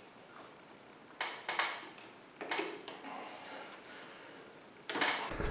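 Oxford heated grip being twisted and pushed onto a motorcycle throttle tube by hand: a handful of short rubbing scuffs, the grip a very tight fit.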